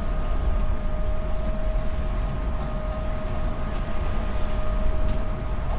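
A motor vehicle running: a steady low rumble with a constant high whine that holds one pitch.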